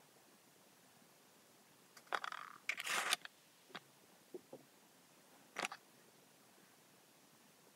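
Handling noise from fingers working ash and super glue into a hole in a PVC pipe: a scratchy rubbing burst about two seconds in, a few small clicks, then one more short sharp scratch.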